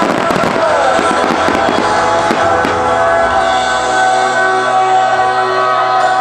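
Fireworks bursting and crackling over loud display music, with the bangs dense over the first few seconds and dying away after about three seconds while the music plays on.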